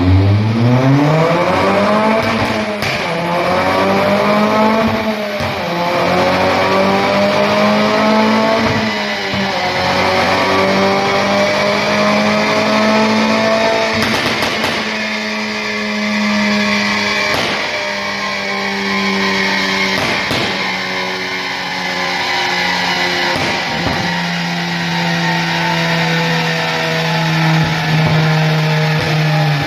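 Tuned Mitsubishi Colt CZT's turbocharged 1.5-litre four-cylinder, running through an aftermarket downpipe and exhaust manifold, revving hard: the pitch climbs steeply over the first two seconds, rises and falls once or twice, then holds high and nearly steady with small rises and dips. A few short, sharp cracks stand out along the way.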